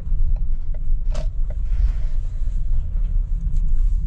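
Steady low rumble of a van rolling slowly, heard from inside the cab, with a few light clicks and rattles.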